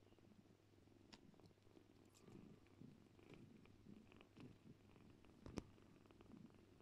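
Faint, steady purring from a mother cat and her kittens while the kittens nurse, with a sharp click about five and a half seconds in.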